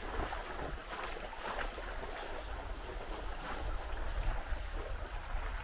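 Mountain bike riding through a shallow, wet stream bed: a steady rumble of wind on the microphone, with splashing and scattered crackles from the tyres over wet stones.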